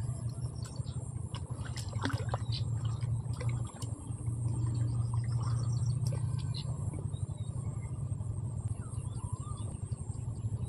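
A steady low hum with a few short bird chirps and scattered clicks over it, and a faint steady high whine.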